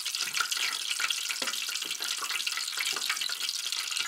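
Flour-coated chicken frying in about an inch of hot oil in a deep fry pan: a steady sizzle, crackling and popping throughout.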